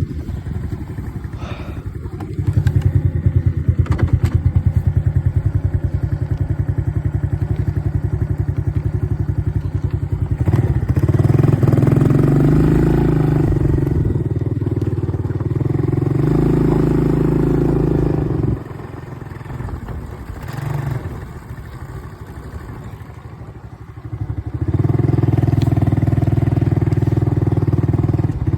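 ATV engine running under throttle, with a dip to a lower, quieter running for several seconds about two-thirds of the way through before the throttle opens up again.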